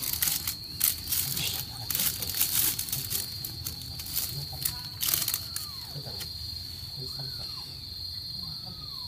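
Plastic bag lining a box rustling and crinkling as a hand strokes kittens, then from about six seconds in, a few faint, short rising-and-falling mews from the young kittens. A steady high insect trill runs underneath.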